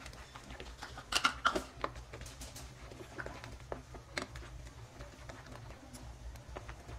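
A silicone spatula stirring thick semolina halwa in a non-stick pan: irregular soft clicks and taps, with a louder cluster about a second in, over a low steady hum.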